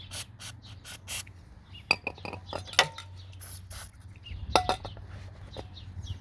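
Small hard objects handled and knocked together: scattered clicks and scrapes, then a few sharp clinks with a short ringing tone, like glass or metal items clinking.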